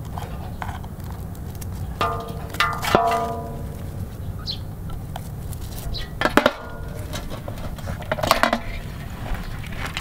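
Metal clatter with short ringing tones, in three bursts about two, six and eight seconds in: aluminium basins and scissors knocking while live mud crabs are handled and their plastic ties are cut.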